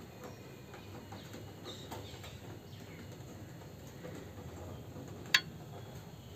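Faint handling clicks and scrapes as an SSD and its SATA cable are fitted into a desktop PC cabinet's metal drive bay, with one sharp click about five seconds in.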